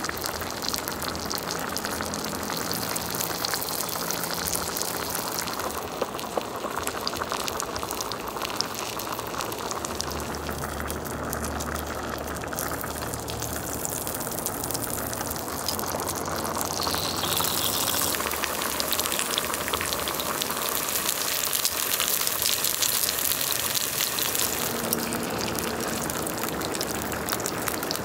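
Prawns, chicken wings and pork sizzling and crackling on the grill plate of an electric hotpot-and-BBQ cooker, with broth bubbling at the boil in the hotpot side. The sizzling grows louder and brighter about two-thirds of the way in.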